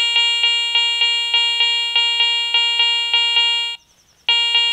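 Garrett ACE 400i metal detector with a Cors Strike coil giving its target tone for a 5 Mark silver coin. A pitched beep repeats about three times a second, stops for about half a second near the end, then starts again.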